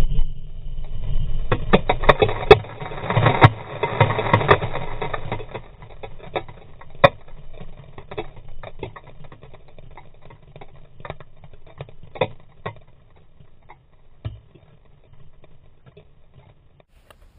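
Sharp clattering knocks, densest in the first few seconds and thinning out to scattered ticks, over a low steady hum.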